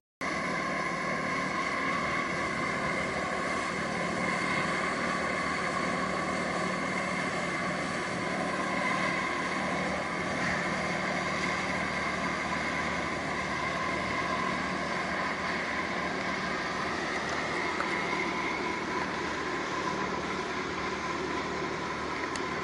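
Steady drone of marine diesel engines and ship machinery from a tugboat and a container ship at close range, with a steady high whine running through it.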